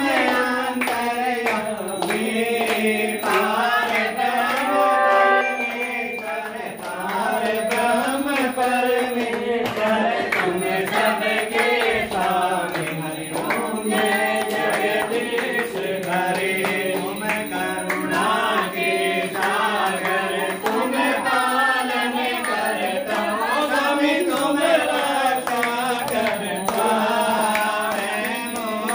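Several voices singing a Hindu devotional hymn or aarti with a chant-like melody.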